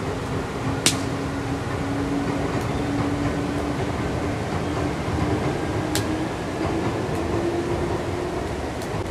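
Steady rushing noise of rain, with a low hum that slowly rises in pitch throughout and two sharp clicks, about one second in and again about six seconds in.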